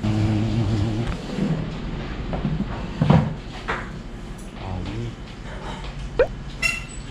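Quiet, indistinct talk in a small restaurant, with a single knock about three seconds in and a few light clicks near the end.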